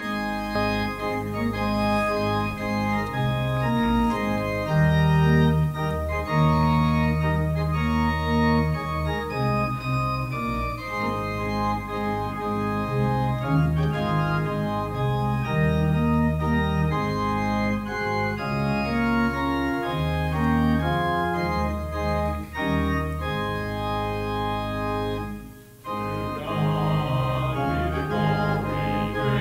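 Church organ playing a hymn in full, held chords over a moving bass line, with a short break about 26 seconds in before it goes on.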